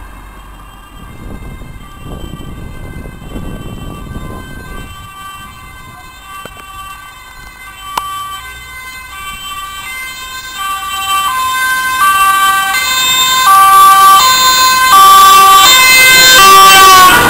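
Ambulance two-tone siren alternating between a high and a low note, faint at first and growing steadily louder as it approaches, its pitch sliding down as it passes near the end. A car drives by in the first few seconds.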